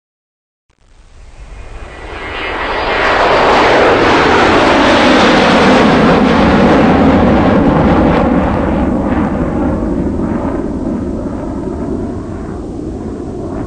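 Loud rushing noise that swells up from silence over a few seconds, holds, then slowly fades as its pitch sinks, with a faint whine in it as it builds.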